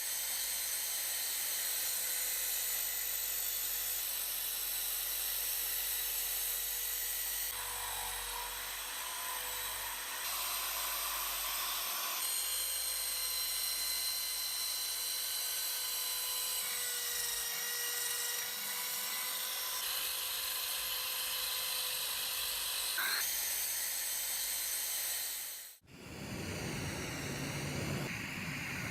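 A small high-speed power tool runs with a steady high whine, working on metal, in several joined takes. About three seconds before the end it cuts abruptly to a different, hissing noise.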